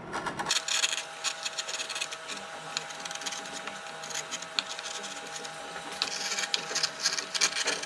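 Hand carving gouge, a #3 sweep, paring wood: a steady stream of crisp slicing and crackling cuts as it smooths off sharp corners.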